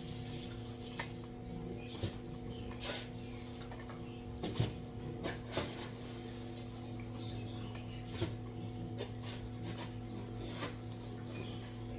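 Cats eating dry cat food: irregular crunches and clicks against their bowls over a steady low hum.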